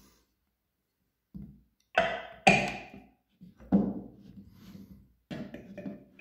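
Hard plastic knocks of a SilverCrest hand blender's chopper attachment being put together: the blade set on the bowl's spindle and the gearbox lid fitted onto the bowl. About five separate clunks, each ringing briefly, the loudest two coming about two seconds in.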